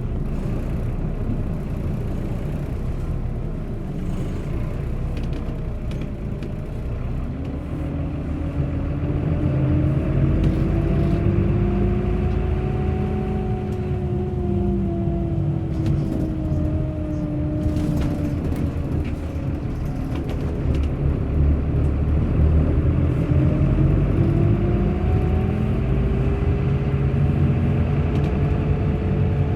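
Bus on the move: a steady low engine rumble with a higher engine tone that climbs and falls twice as engine speed rises and drops.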